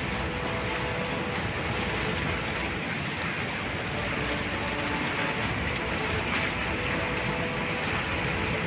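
Steady rushing of muddy floodwater spilling over a weir crest and churning in the turbulent water below.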